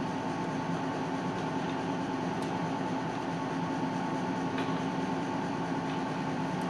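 Steady hum of a commercial kitchen's ventilation fan, with a faint steady high tone through it and a few faint light clicks.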